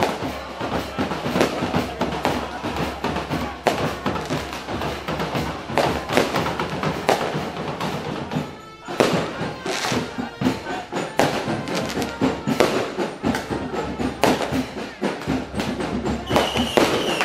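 Music driven by loud, frequent drum strokes, briefly dipping about nine seconds in.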